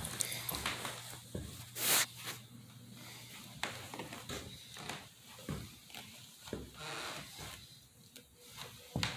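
A dog moving and nosing among broken styrofoam pieces: irregular rustling, scraping and crackling, with one sharper crackle about two seconds in.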